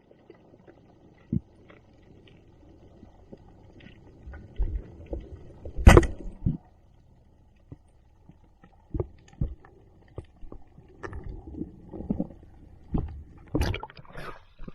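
Muffled low rumbling with irregular knocks and thumps. There is a sharp click about six seconds in and another near the end.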